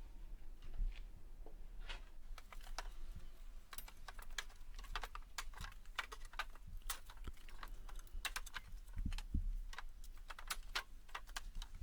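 Irregular light clicks and taps of a steel crowbar working nails out of pallet wood, with two dull thumps about nine seconds in.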